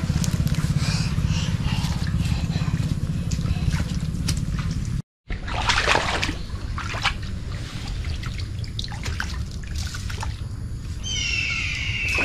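Shallow water sloshing and splashing as a bamboo-framed push net is swept through floodwater, after an abrupt cut near the middle. A chirping animal call with repeated falling notes begins near the end.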